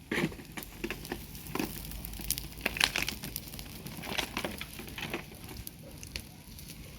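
Dry pulled weeds and brush crackling and rustling as they are handled, with irregular sharp snaps scattered throughout.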